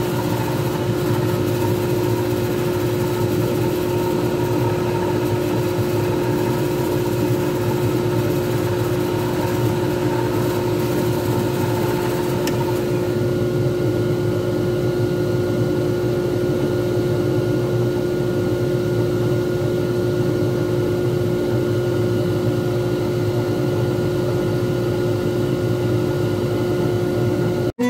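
Lathe motor running steadily at speed, spinning a resin pen blank, with a steady hum and a strong constant tone. A hissier layer on top drops away about halfway through.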